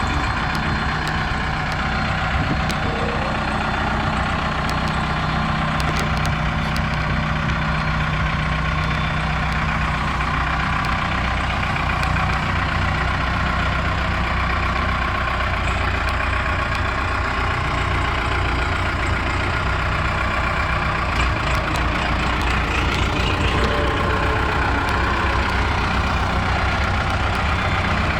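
Case 580L Series II backhoe's diesel engine running steadily, with no change in level.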